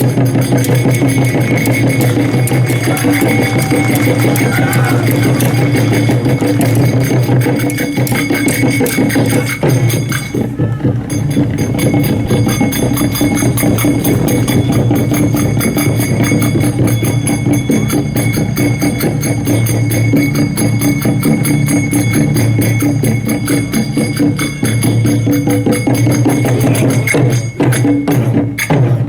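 Loud music driven by drums and percussion, with a dense steady beat.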